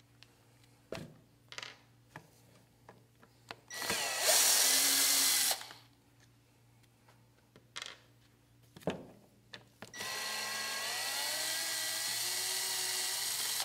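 Cordless drill-driver backing stripped-out screws out of the hinge bracket on a vinyl casement sash. The motor runs twice: briefly about four seconds in, and again from about ten seconds in with a whine that rises and then holds. Small clicks and knocks fall in between.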